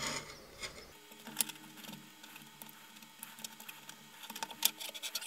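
Faint clicks and taps of 3D-printed plastic parts being handled: the knobs of a PCB vise being turned and its jaws and the board being moved. A sharper click comes about a second and a half in, and a run of small clicks near the end.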